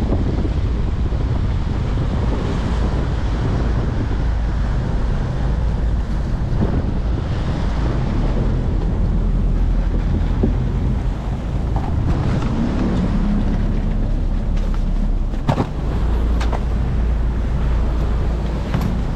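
Fishing boat's engine running steadily, with wind buffeting the microphone and sea wash around the hull. Several sharp knocks come in the last few seconds.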